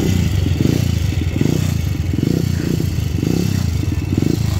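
Motorcycle engine running close by, its rapid exhaust beat swelling and easing about once a second.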